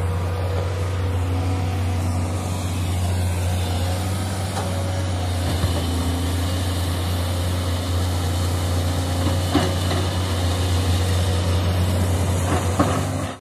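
Heavy diesel engine of a SANY crawler excavator running steadily as a low drone while it digs and loads a dump truck. A few faint knocks of the machine's work come through.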